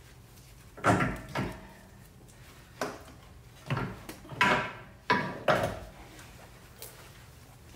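A string of about seven short clunks and scrapes as a 2007 Toyota Camry's engine mount is wriggled and knocked against its brackets while being worked free of the jacked-up engine.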